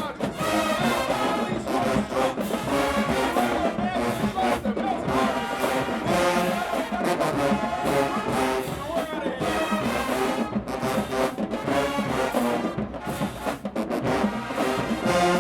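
Marching band brass section playing loud, full-bodied music, with trombones prominent.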